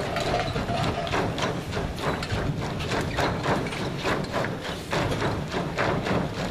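A large group of dancers in trainers jumping in unison, their feet landing together on the stage floor in a steady rhythm of thuds.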